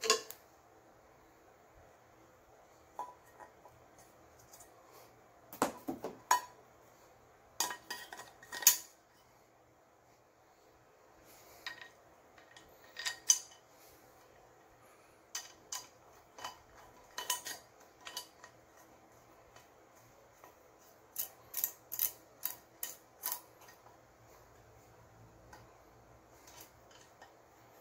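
Clinks and knocks of ceramic-coated aluminium pots, pans and their metal handles being handled while the handles are screwed on with a hand screwdriver. The clinks come irregularly, in small clusters.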